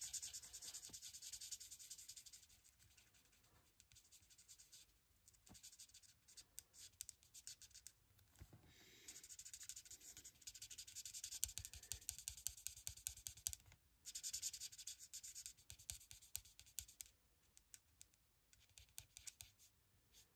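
Marker nib scratching across card in runs of quick back-and-forth colouring strokes. There is a pause with only a few light ticks a few seconds in, and a long busy run starting about halfway through.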